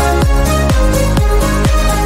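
Electronic dance music with a steady kick-drum beat, about two beats a second, over bass and synth chords, with no vocals.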